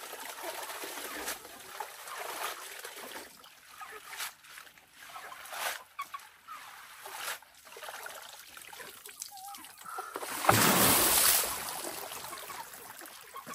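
Tap water trickling into a plastic basin and leafy greens being swished and handled in it, with small splashes. About ten seconds in, the basin's water is tipped out onto the ground in a loud, second-long splash.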